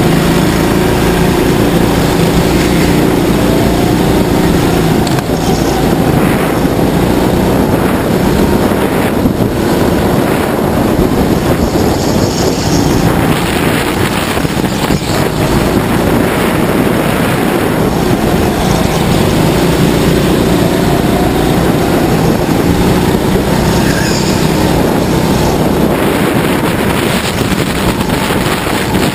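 Go-kart motor running hard during a race lap, its pitch slowly rising and falling as the kart accelerates out of corners and eases off into them.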